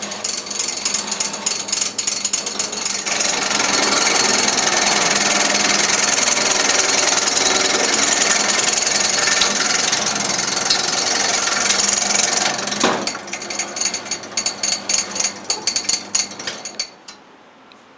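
Orimas BC-02 scallion cutting machine running and slicing scallions: a loud, rapid, dense clatter over a steady motor hum. Near the end it thins out into scattered sharp clicks, then stops.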